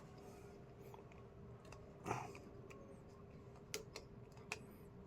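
Faint scattered clicks of a screwdriver tightening a wire under a light switch's terminal screw, with a brief scrape about two seconds in.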